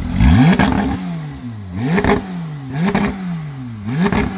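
Porsche 911 GT3 RS's naturally aspirated flat-six being blipped four times while the car stands still. Each rev shoots up sharply and falls back within about a second, and the first is the loudest.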